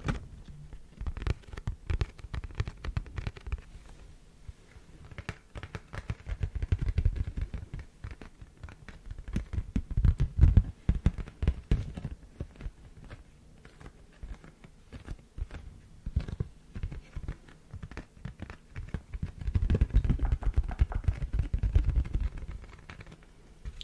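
Rapid close-up scratching and tapping clicks, with swells of low rubbing noise about a third of the way in, near the middle, and again near the end.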